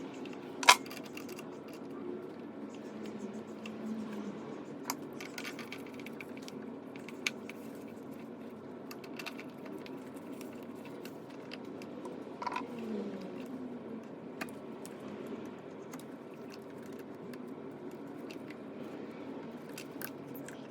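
Scattered light clicks and clinks of tools and small metal hardware being handled, over a steady low background hum. One sharp click about a second in is the loudest.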